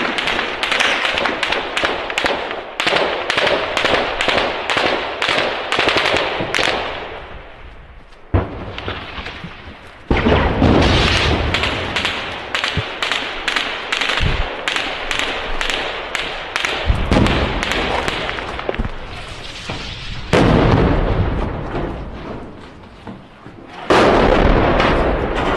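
Small-arms gunfire: a run of sharp shots in quick succession, about three a second, for the first seven seconds or so. Then several heavier blasts, the loudest about ten, twenty and twenty-four seconds in, each trailing off in a long rumble.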